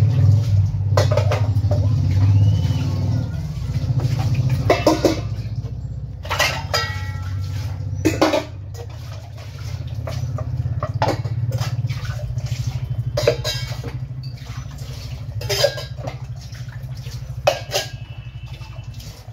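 Steel utensils clinking and clattering as dishes are washed and set down, a knock every second or two, some ringing briefly. A steady low hum runs underneath.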